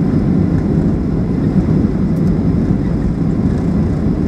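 Steady low rumble inside the cabin of a Boeing 737-800, engine and airflow noise with a constant hum underneath.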